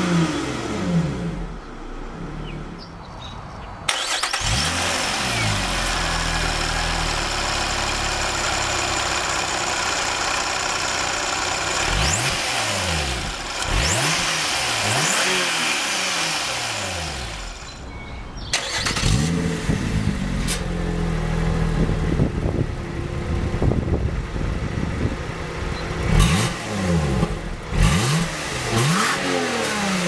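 Supercharged Toyota-sourced 3.5-litre V6 of a 2012 Lotus Evora S being free-revved while the car stands still. Its pitch sweeps up and drops back in a series of blips. The sound changes abruptly twice as the listening position switches between the cabin, the engine bay and the exhaust.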